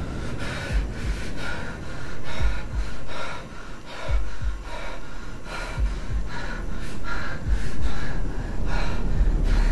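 A young man breathing hard in quick, ragged gasps, about two breaths a second, some with a low thump.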